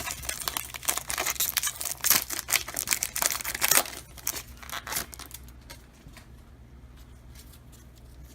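A trading card pack's wrapper being torn open and crinkled with dense crackling for about five seconds, after a struggle to get it open; then it goes much quieter, with a few light ticks.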